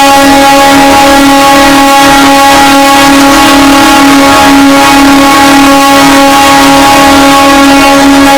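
Mumbai EMU suburban train horn held in one long, loud, steady blast at a single pitch, sounded to greet the New Year.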